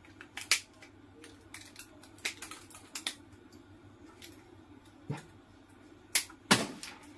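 Side cutters snipping and the pack's parts clicking as the BMS board is cut free from a DeWalt 18650 battery pack: a scattered series of sharp clicks and snaps, loudest about half a second in and twice near the end.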